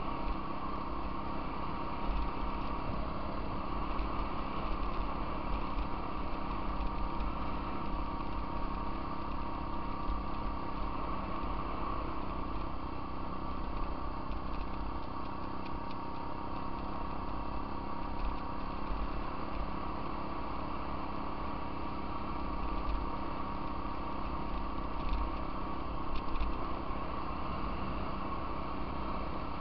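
Off-road vehicle engine running at a steady speed while riding a dirt trail, with a constant low rumble underneath.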